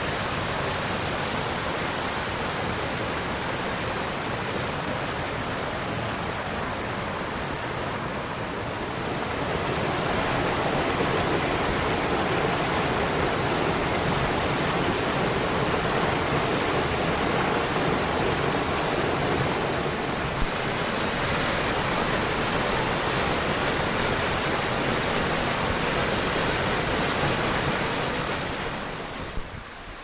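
Todtnau waterfall's cascade rushing, a steady hiss of falling water. It grows louder about a third of the way in and drops away near the end.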